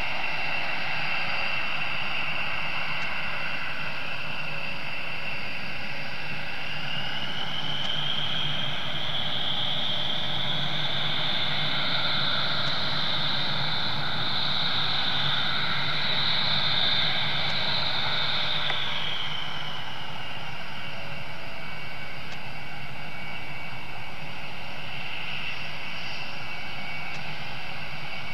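B-1B Lancer's four General Electric F101 turbofan engines whining over a low rumble as the bomber taxis. About seven seconds in the whine rises in pitch, holds, and drops back again about twenty seconds in.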